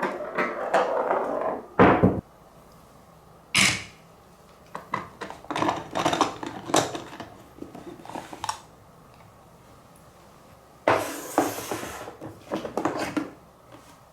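Marbles rolling and clacking along a HABA wooden marble run and wooden rails: sharp single knocks, runs of light wooden taps and a stretch of rattling rolling near the end, with quiet gaps between.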